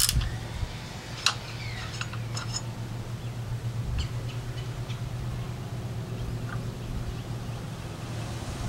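Light clicks and a few short squeaks from a small hand ratchet and driver bits working on a plastic outboard vapor separator tank, over a steady low hum.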